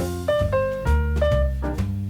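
Jazz background music: piano over upright bass and a drum kit, at a swinging tempo.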